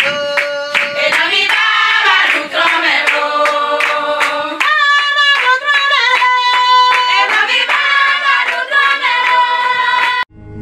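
A group of women singing a Thron vodun devotional song, with steady hand-clapping. The singing and clapping stop abruptly near the end.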